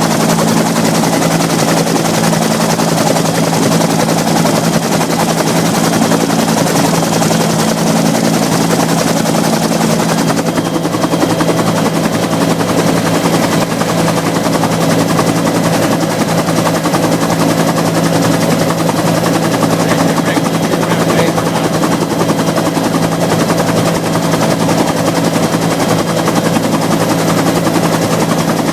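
Bell UH-1 Huey helicopter in flight: loud, steady rotor beat over a steady engine drone with a thin high whine.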